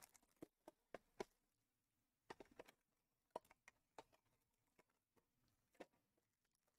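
Faint, sparse clicks and taps from hands handling a cardboard Panini Prizm Choice trading-card box: a few in the first second or so, a quick cluster about two and a half seconds in, then single ones spread out.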